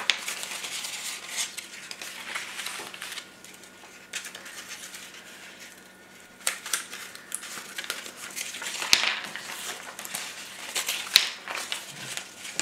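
Yellow paper strips rustling and crinkling as they are handled and bent into a loop, with a few sharp clicks of small items set down on the table.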